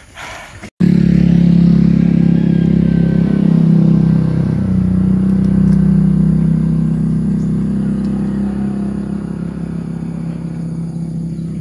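A motor vehicle engine running steadily close by. It starts abruptly about a second in and slowly fades toward the end.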